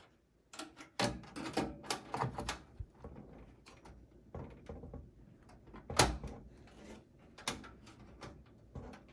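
Knocks and scraping of a GTX 1650 graphics card being fitted into a desktop PC's PCIe slot, with a cluster of knocks about one to two and a half seconds in and a sharp click about six seconds in.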